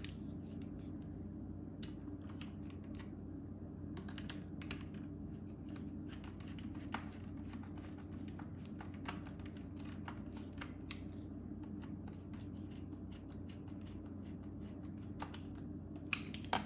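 Hand Phillips screwdriver driving the battery-pack screws into a Dyson V8's plastic housing: small irregular clicks and scrapes, with a couple of louder clicks near the end, over a steady low hum.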